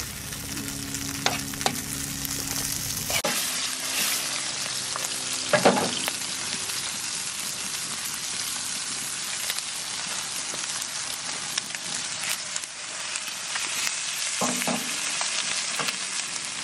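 Diced deer liver and seasoned venison pieces frying in hot oil in two pans, a steady sizzling hiss. A low steady hum sits under it for the first three seconds and stops abruptly.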